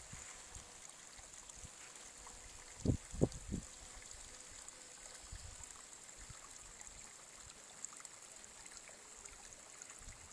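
Small mountain brook trickling over stones, a faint steady hiss, with three brief low thumps about three seconds in.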